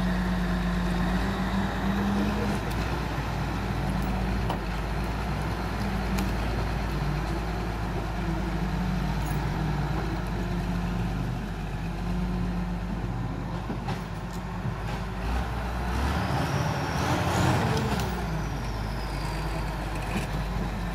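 Log skidder's diesel engine running hard as the machine drags and hoists a log on its winch cable, revving up and back down near the end.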